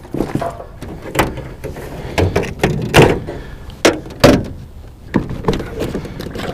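Irregular knocks and clunks of fishing gear being handled in an aluminium boat, with rustling of a bag and plastic tackle boxes; the loudest knocks come about three and four seconds in.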